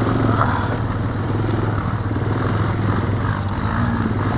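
Honda Recon ATV's single-cylinder engine running steadily at a constant pitch, with a low, even drone as it crawls over a rocky trail.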